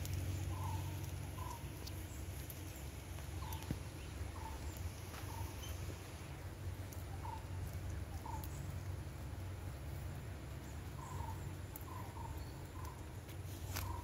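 Short, clipped bird calls repeated in little groups of two to five, over a steady low rumble.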